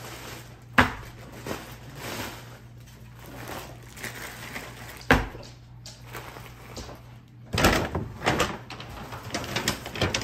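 Bags of seafood boil being unpacked from a paper takeout bag and set on a wooden table: crinkly plastic and paper rustling, with two sharp knocks about a second in and about five seconds in as bags are put down. Near the end, a quick run of knocks and rustling.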